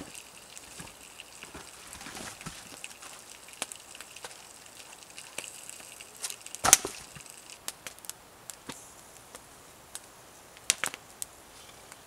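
Rounds of firewood knocking against wood as they are handled and tossed onto a pile: a few scattered knocks, the loudest about two-thirds of the way in, with a campfire crackling quietly in between.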